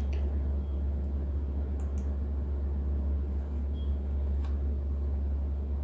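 Steady low background hum, with a few faint short clicks.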